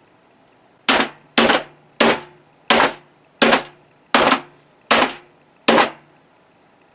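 A BenQ membrane keyboard being hit hard again and again: eight heavy blows, about one every 0.7 s, each with a short ringing decay.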